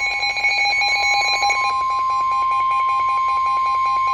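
NOAA Weather Radio warning alarm tone: a loud, steady, single high tone, with a second, rapidly pulsing beep layered over it.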